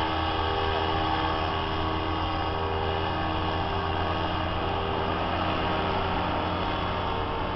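Paramotor engine of a powered paraglider quad running with a steady drone as the quad descends for a touch and go.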